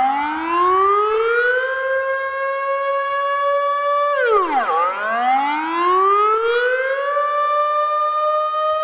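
Civil-defence-style warning siren wailing. Its pitch climbs slowly to a held high note, dips sharply about four seconds in, then climbs and holds again.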